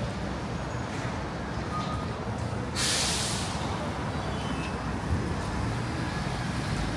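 City street traffic running steadily, with a sudden sharp hiss of a heavy vehicle's air brakes releasing about three seconds in.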